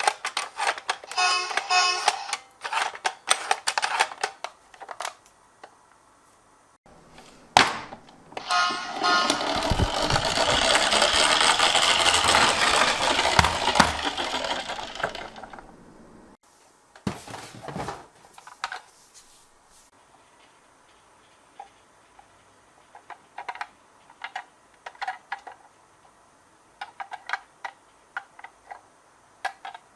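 Toy minicars clicking and clattering against a plastic slope track as they are set down and moved, with one long rolling run in the middle that builds for a few seconds and then fades away.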